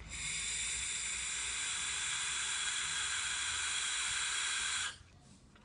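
Steady hiss of a vape mod's atomizer during one long draw on an electronic cigarette. It starts just after the opening, runs about five seconds and stops abruptly.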